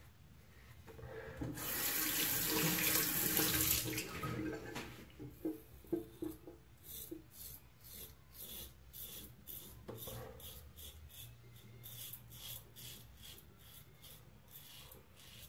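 A water tap runs for about three seconds near the start. Then a Merkur Progress adjustable double-edge safety razor, set at 4 with an Astra Superior Platinum blade, cuts stubble through shaving lather in quick short strokes, about three rasps a second.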